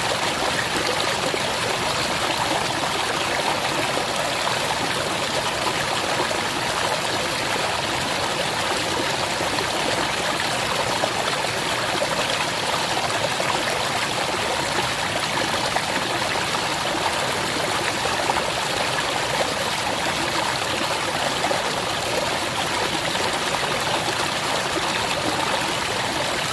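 River water flowing over stones, a steady rushing and babbling that holds even throughout.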